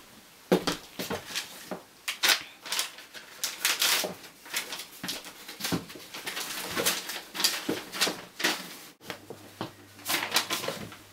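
Paper rustling and crinkling in quick irregular crackles as a letter is handled and unfolded, pausing briefly about nine seconds in.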